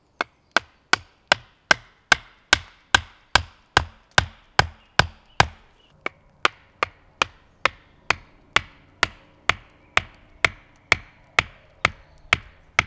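A steady, evenly timed series of sharp wooden knocks, about two and a half a second, each with a short ringing tail, with a brief break about halfway through.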